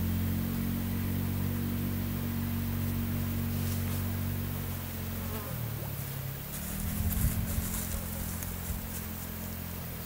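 A low, steady droning buzz with several pitches stacked together. It dips about five and a half seconds in and rises again a second later, with a few sharp knocks about seven seconds in.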